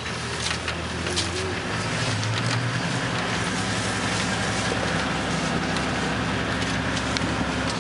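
Toyota safari vehicle's engine running steadily, its pitch rising a little about two seconds in and then holding, with a few faint clicks.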